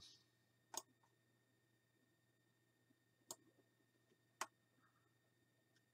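Near silence broken by three sharp computer mouse clicks, about a second in, after three seconds and after four and a half seconds.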